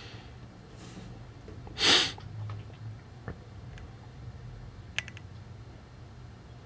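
A person sniffs once, short and sharp, about two seconds in. A couple of faint clicks follow, over a low steady hum.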